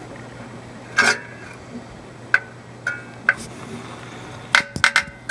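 Sharp clicks and light clinks of a caulking gun of black silicone being handled against aquarium glass: a few single clicks spaced apart, then a quick cluster of four near the end.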